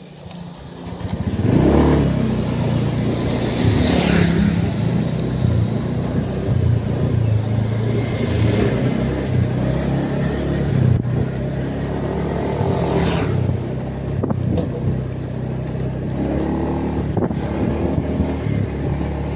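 Motor vehicle engine coming up about a second in and then running under way. Its pitch rises several times as it accelerates.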